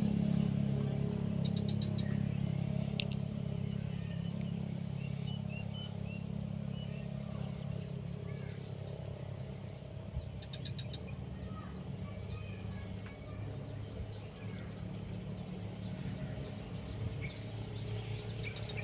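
A steady engine drone, loudest at the start and easing off, with birds chirping and insects buzzing over it.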